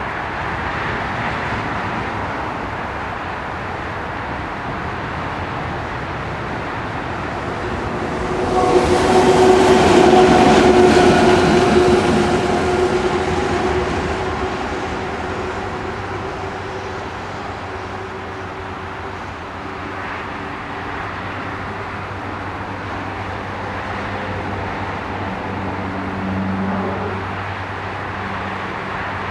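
A French electric locomotive passes close by with a steady whine, loudest about nine to twelve seconds in, then fades away. A steady rail rumble runs underneath.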